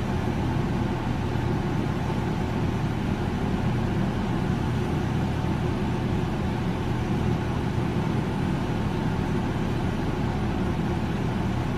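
Steady low mechanical hum, unchanging in level throughout.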